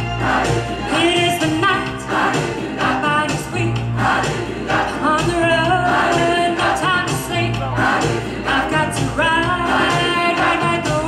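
A female lead singer and a large mixed choir singing a rock song over a steady bass line and beat.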